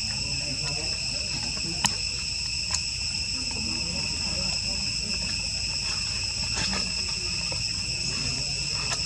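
Steady, high-pitched chorus of insects ringing without a break, with a few sharp clicks now and then.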